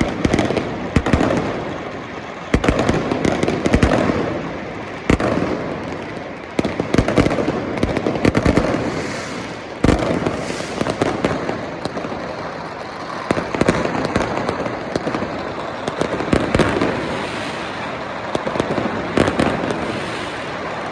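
Many fireworks and firecrackers going off together from the ground below, a constant crackling rumble broken by frequent sharp bangs. The bangs echo off the surrounding high-rise buildings.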